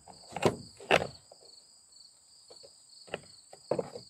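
A few sharp knocks and clicks of metal chainsaw parts being handled as a new chain is fitted onto the bar, over a steady high trill of insects.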